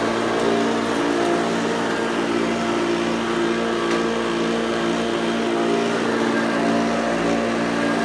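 Hoover Junior U1104 upright vacuum cleaner running steadily as it is pushed over carpet, its motor giving an even hum with several steady tones.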